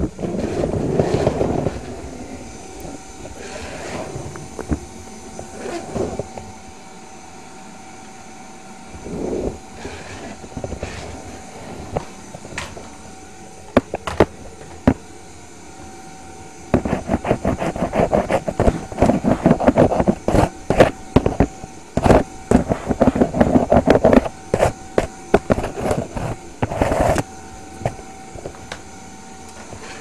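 Vacuum cleaner running with a steady motor whine, while grit and debris clatter and rattle through it in scattered clicks, turning into a dense run of rattling for several seconds in the second half.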